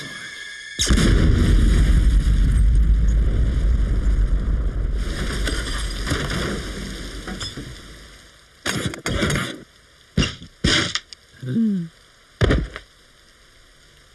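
Cartoon explosion: a sudden loud blast about a second in, followed by a long low rumble that dies away over several seconds. Several short bursts of noise and a small falling squeak follow near the end.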